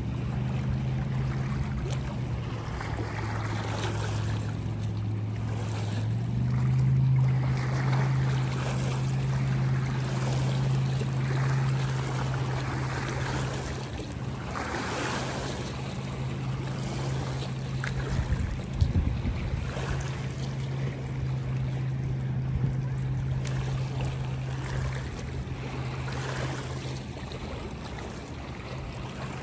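Small waves lapping against the lakeshore in gentle, repeated washes, over the steady low drone of a motorboat engine that shifts pitch a couple of times, about six seconds in being the clearest.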